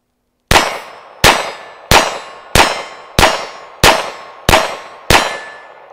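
GSG 1911 .22 LR semi-automatic pistol firing a steady string of about nine shots, evenly spaced about two-thirds of a second apart, each with a short ringing decay.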